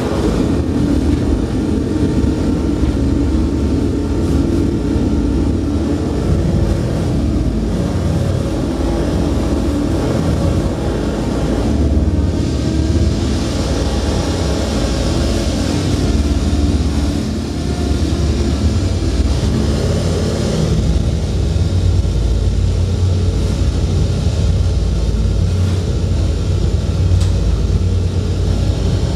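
A loud, steady low rumbling drone, with a hissing noise layered over it from about halfway through for several seconds.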